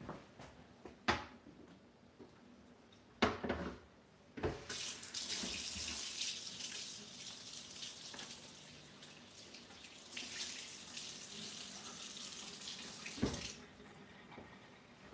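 Kitchen tap running into a sink while a whole raw chicken is rinsed under it; the water comes on about four seconds in, softens, strengthens again and is shut off near the end. A few knocks and clunks come before the water starts and as it stops.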